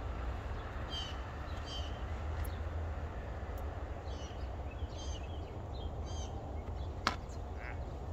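Small birds chirping in short calls, a handful of times, over a steady low rumble. One sharp click comes about seven seconds in.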